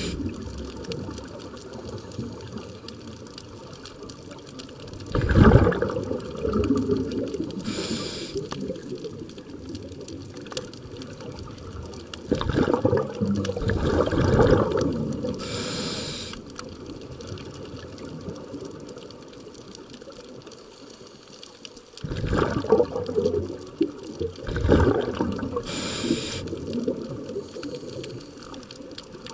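Underwater breathing through a scuba regulator: a short high hiss on each inhalation, then a louder rush of exhaled bubbles a few seconds later, repeating about every eight or nine seconds.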